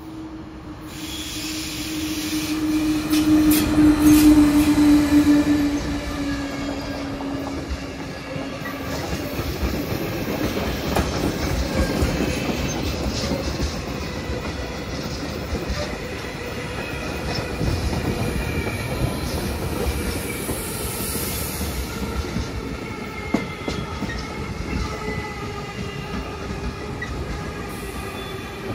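SBB Re 620 (Re 6/6) electric locomotive passing with a long freight train of empty flat wagons. The locomotive's hum is loudest about four seconds in and sinks in pitch as it goes by. Then comes the steady rumble of the wagons, with wheel clicks over the rail joints and faint wheel squeal.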